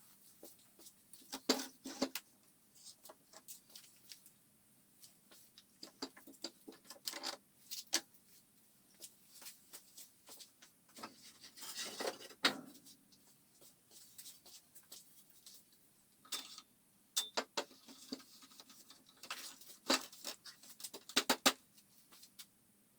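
Scattered knocks, clicks and short scrapes of wood pieces and tools being handled on a workbench, irregular, with a few louder knocks.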